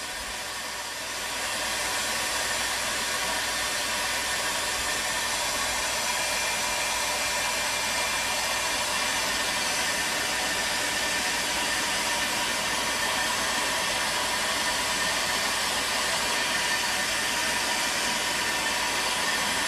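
Stanley STEL670 electric heat gun running steadily, its fan blowing a continuous rush of hot air, growing louder about a second and a half in. It is heating the glued fittings of a plumbing manifold to melt the adhesive so they can be taken apart.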